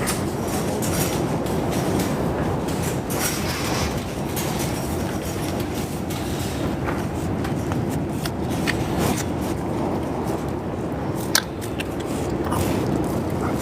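Strong wind blowing on the microphone: a steady low rumble with scattered clicks and knocks, and one sharp knock about three-quarters of the way through.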